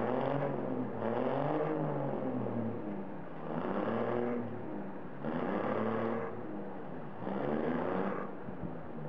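A vehicle engine revving up and dropping back again and again, a swell roughly every two seconds, with a steady running sound between the revs.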